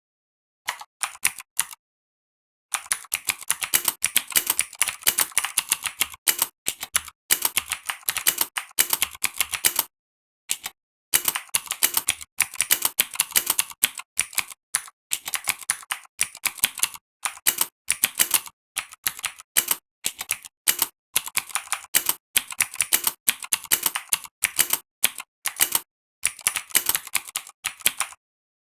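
Fast typing: a steady run of sharp mechanical-keyboard key clicks, several a second, in bursts with short pauses. The clicks are simulated mechanical-switch sounds played by the Mechvibes app on each keypress, with total silence between strokes.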